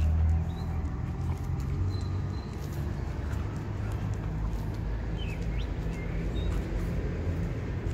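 Two dogs play-fighting, with low rumbling growls and scuffling clicks throughout. A few brief bird chirps are heard faintly.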